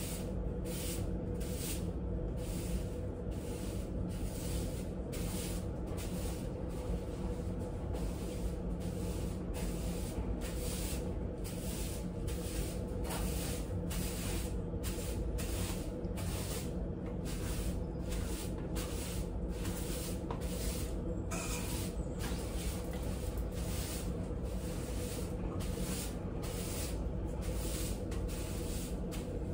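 A broom sweeping a hard tiled floor in short, regular strokes, about two a second.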